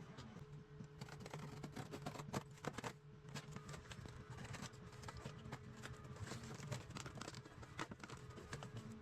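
Scattered light clicks and taps at an irregular pace over a steady low hum.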